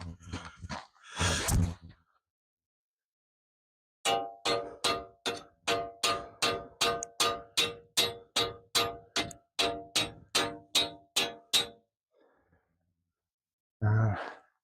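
Hammer repeatedly striking a stake to drive it into the snow: about two dozen ringing clangs, steady at roughly three a second, for about eight seconds. A couple of brief scuffing noises come before the hammering.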